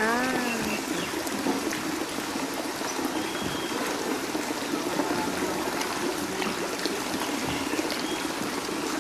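Steady trickling and splashing of water in a crowded turtle pond. A brief pitched vocal sound comes right at the start.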